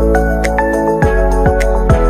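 Background music: sustained chords with a few deep drum hits.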